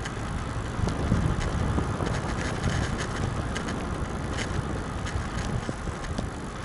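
Riding noise of a KhVZ Start Shosse road bicycle on asphalt: steady rumble of wind on the microphone and tyre noise, with scattered light clicks.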